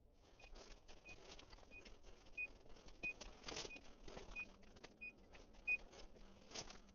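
Faint short beeps repeating about every two-thirds of a second, nine in all, typical of a bird dog's beeper collar, with faint rustling and brushing in the cover throughout.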